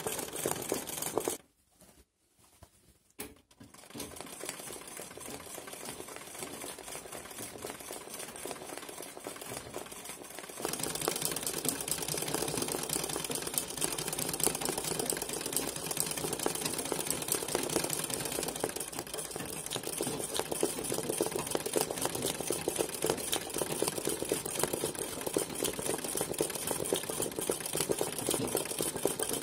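Straight-stitch sewing machine (a Turkish 'kara makine') running fast for free-motion embroidery, the needle stitching in a rapid even rattle. It stops for about two seconds soon after the start, starts again softly, and runs louder from about a third of the way in.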